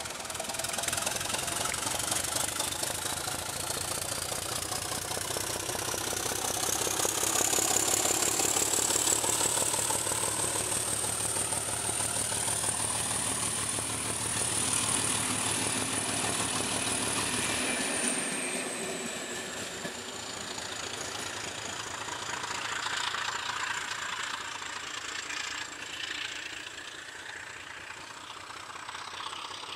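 ČD class 749 'Bardotka' diesel locomotive working under power with a passenger train: a low engine throb topped by a high turbocharger whistle that rises steadily in pitch over the first several seconds, then holds. About two-thirds of the way through the whistle drops a little in pitch and the engine throb fades as the train moves away.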